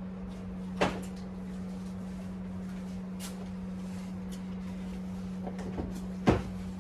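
Two sharp knocks about five and a half seconds apart, with a few fainter clicks, over a steady low hum.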